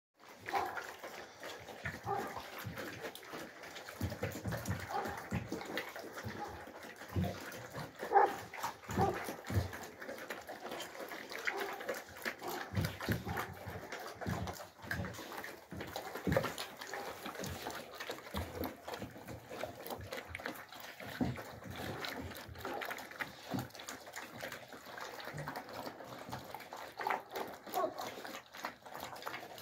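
Alabai (Central Asian Shepherd) puppies eating from bowls: irregular wet chewing and smacking sounds.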